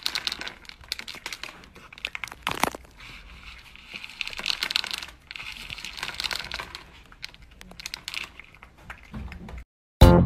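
A cat pawing at dry kibble in a plastic food bowl: the pellets rattle and click irregularly with crunchy crackling. Near the very end there is a brief silence, then guitar music starts.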